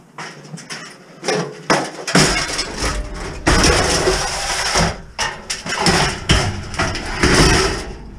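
Long pieces of light scrap iron being thrown in and handled, a run of metal clanks and rattles, loudest in the middle.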